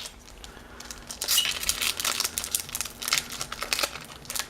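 Foil wrapper of a Pokémon trading card booster pack crinkling and tearing as it is opened by hand, in irregular crackles that grow busier about a second in.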